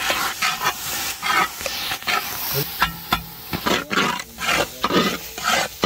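Perforated metal spatula scraping and turning thick ash gourd (white pumpkin) halwa in a large metal pan, in quick repeated strokes of about three a second, with a light sizzle of ghee. The halwa is cooked down to a stiff, sticky mass at its finishing stage.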